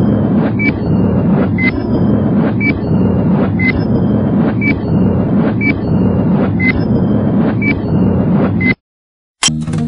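Countdown intro sound effect: a short click with a brief high beep once a second over a steady low droning noise, cutting off sharply about nine seconds in. Acoustic guitar music starts just before the end.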